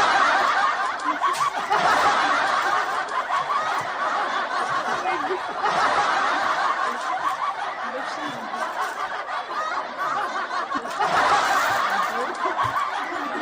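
Laughter, high-pitched and nearly continuous with only brief dips.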